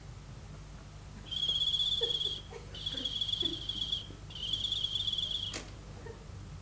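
A shrill, trilling whistle blown three times, each blast about a second long, the departure signal for the train; a single sharp click follows near the end.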